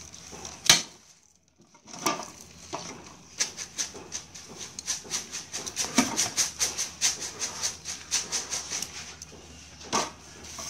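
Metal tongs clinking and scraping against a stainless steel plate as a whole boiled chicken is lifted and turned. There are sharp clacks about a second in, at about six seconds and near the end, with a quick run of small clicks in between, over a steady high hiss.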